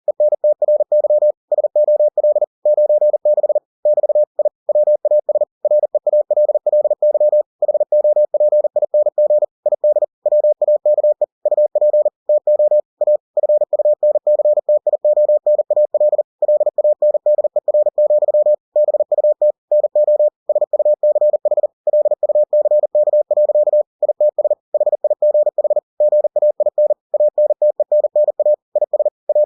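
Computer-generated Morse code (CW): a single steady mid-pitched tone keyed very rapidly into dots and dashes at 40 words per minute, spelling out the text of a book for listeners practising copying code by ear.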